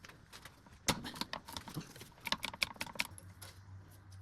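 Irregular metallic clinks and rattles of a socket and loose E12 Torx bolts as the drive shaft is unbolted from the differential flange. A low steady hum comes in about three seconds in.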